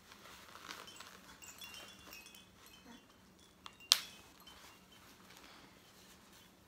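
A cloth nappy's plastic press-stud popper snapping shut with a sharp click a little under four seconds in, a fainter click just before it, and soft fabric handling around them.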